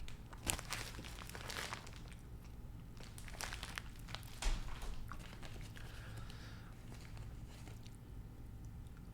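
A person eating a piece of hard candy: crackly rustling and crunching in two bursts, with a sharper click about half a second in and another about four and a half seconds in.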